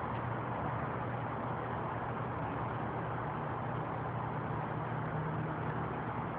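Nissan L20B inline-four engine idling steadily, the sound the uploader presents as that of a bad tensioner.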